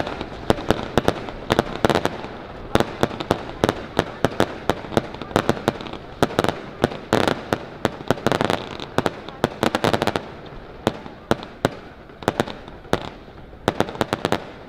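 Fireworks going off from a lit boat on the water: a rapid string of sharp bangs and crackles, several a second, that thins out after about ten seconds.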